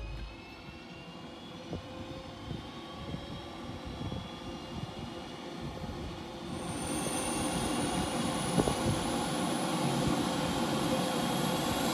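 Aero Commander 690's Garrett TPE331 turboprop engines running as the plane taxis past, with a whine that rises slowly in pitch. It grows louder and higher from about halfway through.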